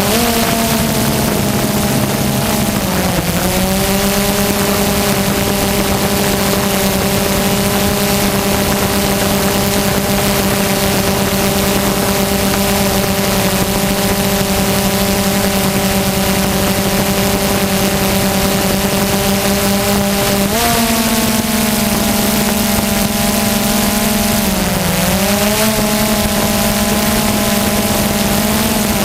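DJI Phantom quadcopter's electric motors and propellers whining steadily in flight over a constant hiss, picked up close by the on-board camera. The pitch dips briefly about three seconds in, steps up about twenty seconds in, and dips again a few seconds before the end as the motors change speed.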